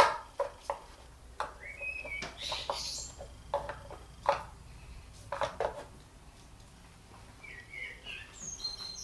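Scattered clicks and knocks with a few brief high squeaks: plastic engine-bay parts handled with rubber-gloved hands, as the oil filler cap and dipstick of a 1.6 HDi diesel engine are worked free.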